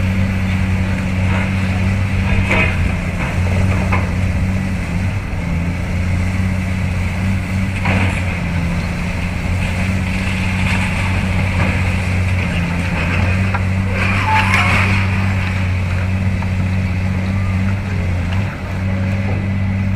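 Diesel engines of Caterpillar tracked demolition excavators running with a steady drone, with a few brief clatters and crunches of concrete rubble, the clearest near the middle and about three quarters of the way through.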